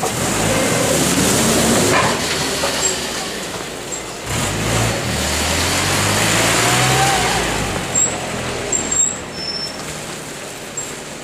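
Small rear-loading garbage truck's diesel engine running and revving as the truck pulls away, with a rising whine about six to seven seconds in and a few sharp clicks a second later.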